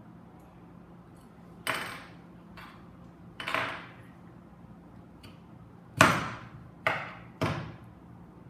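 Several sharp knocks at uneven intervals, the loudest about six seconds in and two quicker ones after it: a metal cork borer being driven through a raw potato and knocking against the cutting board beneath.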